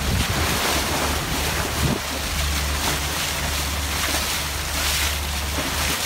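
Water rushing and splashing past a Lagoon 450 sailing catamaran's hull under way, with strong wind buffeting the microphone as a steady low rumble.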